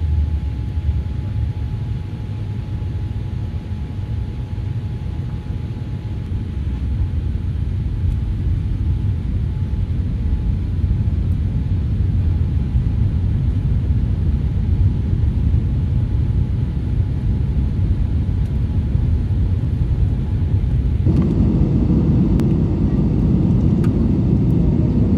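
Boeing 787-8 cabin noise: a steady low rumble with a thin, steady high whine from the wing flap drive as the flaps extend; the whine fades out about ten seconds in. Near the end the sound cuts abruptly to the louder, fuller cabin rumble of an Airbus A320-200.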